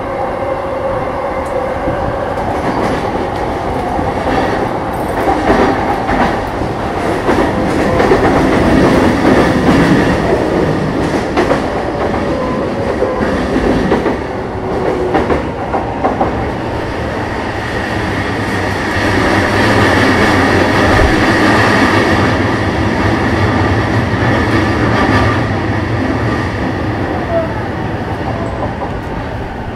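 Running noise inside a JR East E233-7000 series electric train's motor car: wheels clacking over rail joints and the hum of its Mitsubishi IGBT-VVVF traction equipment, over very loud air conditioning. It swells about eight seconds in and again around twenty seconds in.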